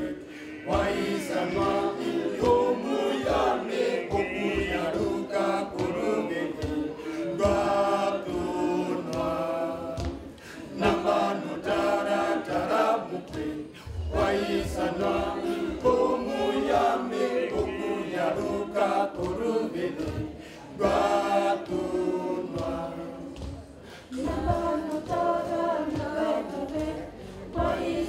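Small mixed choir of men's and women's voices singing a cappella in harmony, pausing briefly between phrases.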